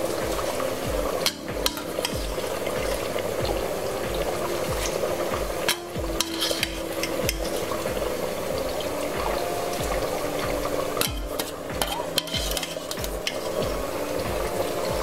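A pot of water at a rolling boil, bubbling and hissing steadily, as soaked rice is tipped into it from a steel strainer, with several sharp clinks of the metal strainer and bowl against the pot.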